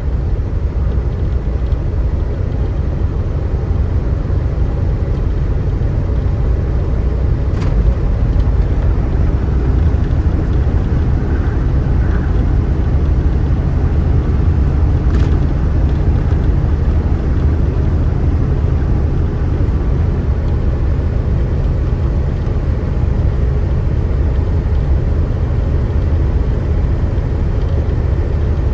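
Short-wheelbase semi truck's diesel engine pulling under load, heard from inside the cab: a steady low drone.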